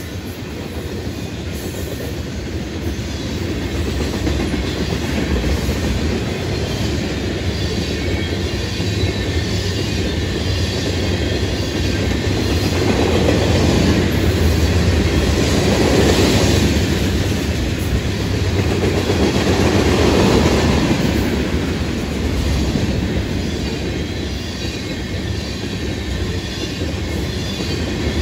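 Freight cars of a fast-moving BNSF manifest train rolling past, a continuous noise of steel wheels on rail. It grows louder and is loudest through the middle, then eases slightly.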